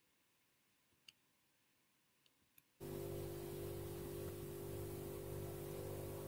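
Near silence with a few faint clicks, then about three seconds in a steady low hum with hiss starts abruptly and runs on without change.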